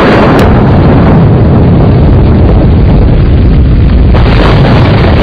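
Heavy rain with rolling thunder, a loud continuous rumble, with a sharp crack about half a second in.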